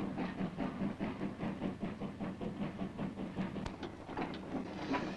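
Steam locomotive hauling a train of coal wagons, with a fast even clatter of about four to five beats a second over a steady low rumble. A single sharp click comes a little past halfway.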